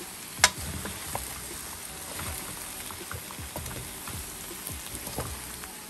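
Browned turkey necks sizzling in a pot while a metal spoon mixes in chopped peppers, onions and seasoning, knocking and scraping against the pot, with one sharp clink about half a second in.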